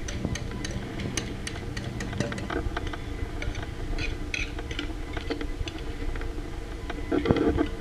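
A spoon scraping and tapping against a bowl as the last of the pudding is poured out and spread, heard as scattered light clicks and scrapes, with a louder clatter near the end. A steady low hum runs underneath.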